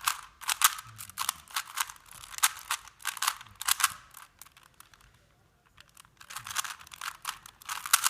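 Rubik's Cube being turned quickly by hand, a rapid run of plastic clicks and clacks as the layers snap round. It stops for about a second and a half just past the middle, then starts again.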